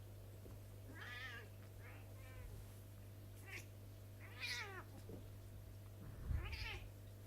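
Cats meowing and yowling at each other in a quarrel: about five short, wavering calls, the longest about halfway through.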